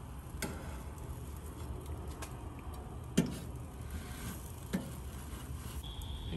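Charcoal fire under a grill grate crackling, with a few sharp pops over a low steady rumble.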